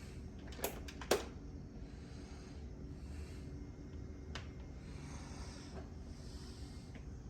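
A person breathing close to the microphone, with soft breaths every second or two. Three sharp clicks: two about a second in, one a little past the middle.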